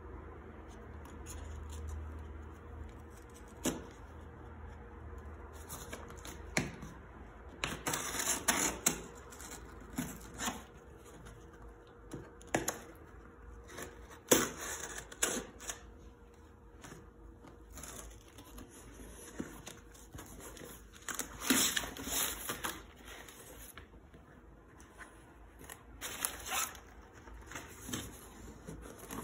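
A small knife slitting brown packing tape along the seam of a cardboard box, with irregular scraping strokes and sharp knocks on the cardboard. Near the end the box flaps are pulled open and crumpled packing paper rustles.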